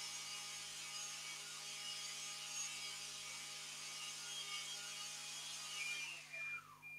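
Kenwood Cookeasy Platinum food processor's blade motor running steadily as a whine while blending roasted pepper with heat, then winding down with a falling pitch about six seconds in. A few short beeps near the end signal the timed blend is finished.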